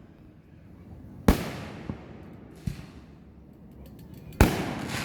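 Fireworks going off: two loud booms about a second and a half apart from the end, each fading away slowly, with a couple of smaller pops between them.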